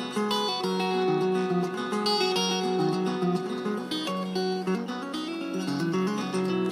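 Music: acoustic guitar playing a quick run of plucked notes.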